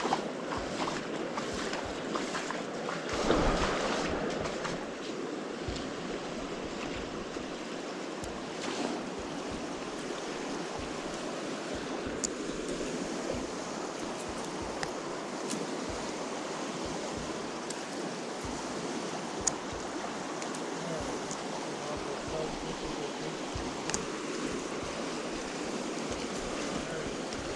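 Fast, high river water rushing steadily, with a brief swell about three seconds in; the river is running high.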